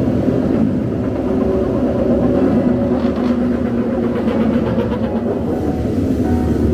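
Racing motorcycle engines running steadily at low revs.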